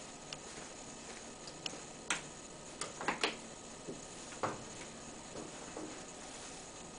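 Scattered light clicks and knocks, irregular, with a small cluster of louder ones about two to three seconds in and a duller knock a little later, from a person moving about at an open car's cockpit; the engine is not yet running.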